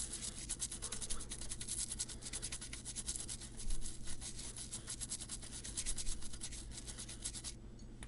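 Toothbrush scrubbing acetone over the solder joints on the back of a circuit board in quick back-and-forth strokes, to clean off flux residue. The scrubbing stops shortly before the end.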